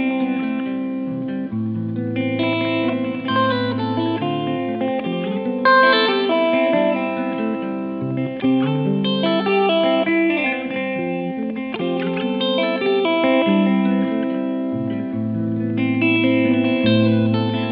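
Background music: a guitar playing chords over a bass line.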